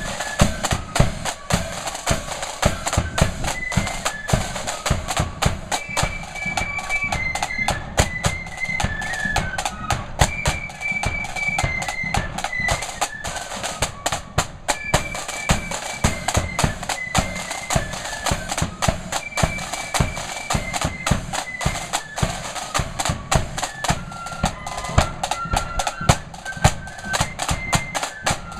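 Marching flute band playing a tune: flutes carry a stepping melody over a steady beat of snare drums and bass drum.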